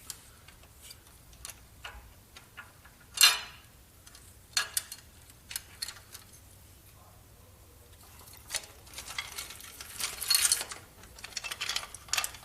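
Light metallic clicks and clinks of engine timing parts and hand tools being handled, with one louder clank about three seconds in and a stretch of scraping and rattling from about eight seconds in.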